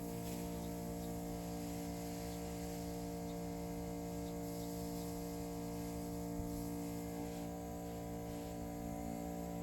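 Steady machine hum made of several fixed, unchanging tones.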